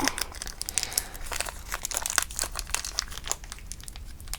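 Plastic blind-bag toy packaging crinkling and crackling as it is handled and torn open by hand, in quick irregular crackles.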